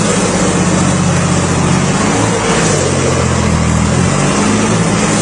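Hattat 260G tractor's diesel engine running hard at high revs. Its note sags for about a second around the middle, then picks up again.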